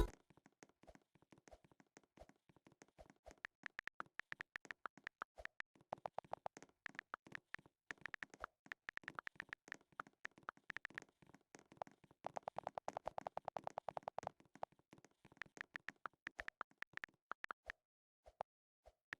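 Quiet, rapid taps or clicks in uneven runs and groups with short pauses between them: Morse code being tapped out.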